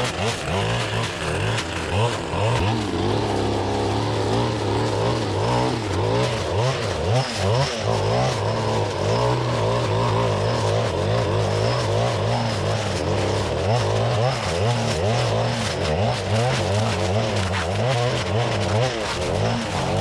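Stihl FS-561C clearing saw's two-stroke engine running at high revs while its blade mulches blackberry bramble, its pitch rising and falling over and over as the blade is swung and loaded.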